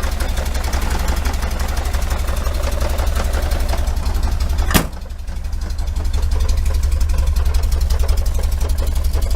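1973 VW Super Beetle's air-cooled flat-four engine idling with an even pulse, with exhaust leaking a little at the heater-box joints. A single sharp click about halfway through is followed by a brief dip in loudness.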